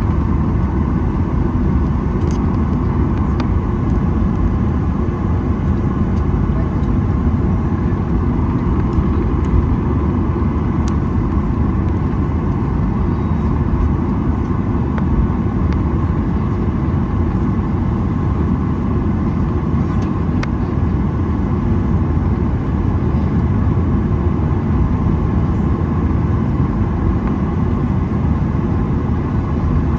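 Steady cabin noise of a Boeing 737-900ER: the roar of its CFM56-7B turbofan engines and rushing air, heard from inside the cabin, at an even level with a few faint ticks.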